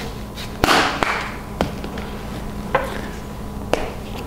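Plastic spice jars being handled: a sharp knock with a short rattle about half a second in, then four lighter clicks spread over the next few seconds.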